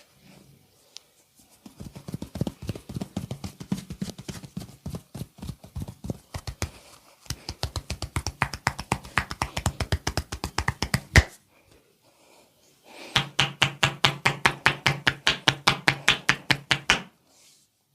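Massage percussion strokes: hands chopping and slapping rapidly on the body, about eight to ten strikes a second, in three runs of a few seconds each with short pauses between them. The last run has a more hollow, cupped-hand sound.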